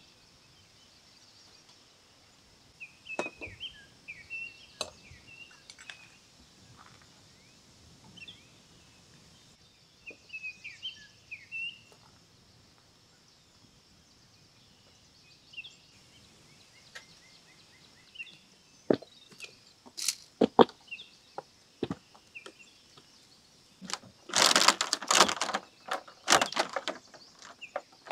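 Small birds chirping on and off over a quiet outdoor background, with a few sharp knocks and clinks from camp gear being handled. Near the end comes a loud, rough clattering burst lasting about three seconds.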